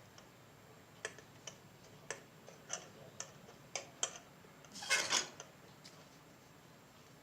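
Light clicks and taps of small tools and parts being handled at a circuit board during soldering, irregular at first, then a short louder clatter about five seconds in.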